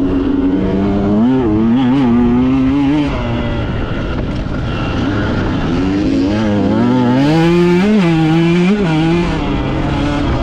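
Dirt bike engine revving hard as the rider works the throttle over rough ground. Its pitch climbs and falls again and again, with strong surges about a second in and again near the eight-second mark.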